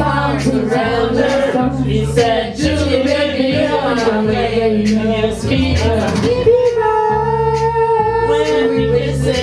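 A song: a voice singing a melody over instrumental accompaniment with a steady bass line, holding one long note about seven seconds in.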